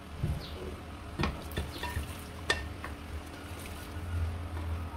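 Wooden spatula stirring minced-meat, potato and carrot filling in a stainless steel pan, with a few sharp knocks of the spatula against the pan, over the filling cooking on low heat.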